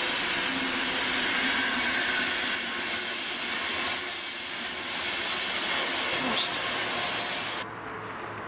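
Intercity passenger coaches rolling past on jointed yard track, wheels squealing in several thin high tones over the rolling noise. The sound drops away abruptly near the end.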